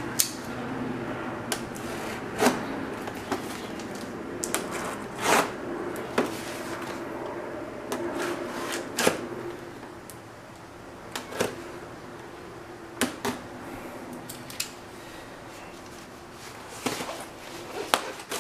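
Cardboard box being handled and cut open: scattered knocks, taps and scrapes on the cardboard with rustling between them, and a blade working along the taped edge.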